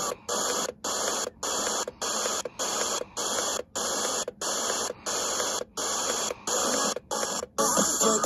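FM static hiss from a Börne portable radio's speaker as it is stepped up the band one channel at a time, the hiss cutting out briefly at each step, roughly twice a second, between stations. Near the end a station's audio starts to come through as 99.1 MHz is reached.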